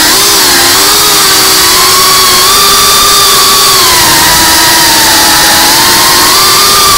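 5-inch FPV quadcopter's brushless motors and propellers whining loudly and steadily, heard from the drone's own onboard camera; the pitch sags a little around the middle and climbs again near the end as the throttle changes.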